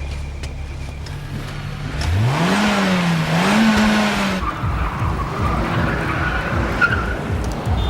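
Car engine revving up and wavering in pitch, with a burst of tyre skidding hiss. After that it drops back to a low, regular pulsing.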